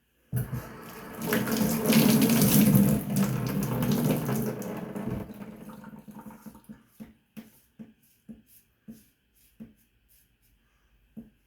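Tap water running into a bathroom sink for about five seconds, then shut off, followed by a string of short, soft sounds about once a second.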